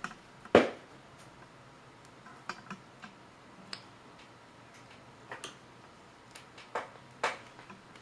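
Scattered light clicks and taps from handling multimeter test probes, irregular, with the sharpest click about half a second in.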